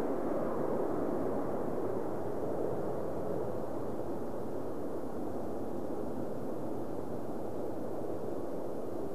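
Jet engine roar from an Airbus A350's Rolls-Royce Trent XWB engines, a steady rushing rumble that slowly fades over the first few seconds as the airliner moves away, then levels off.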